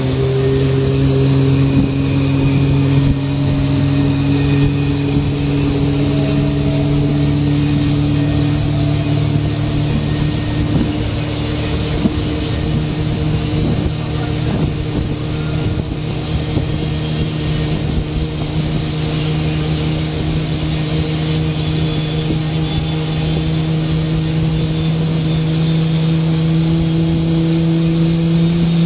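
Aircraft engine running with a loud, steady hum whose pitch rises slowly and evenly throughout.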